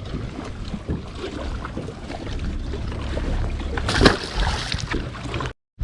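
Steady wind and water noise around a small fishing boat, with a low rumble and small knocks, and a brief louder noise about four seconds in.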